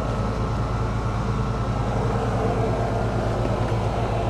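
An engine idling steadily with a low, even rumble.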